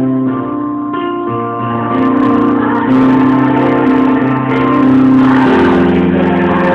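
Live music with keyboard accompaniment: held chords that change every second or so.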